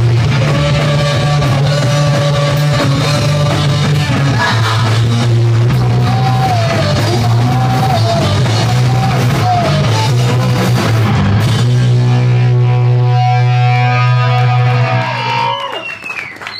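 Live rock band playing loud, with distorted electric guitar and bass holding a heavy low drone over a drum kit. The band thins out and drops in level near the end.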